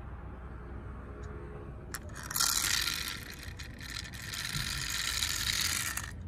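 Toy cars being handled: a rattling, scraping clatter of small hard pieces that starts about two seconds in and stops sharply near the end.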